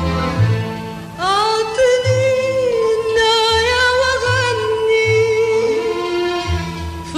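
A song: a singer holds long, wavering notes over a low, pulsing bass line.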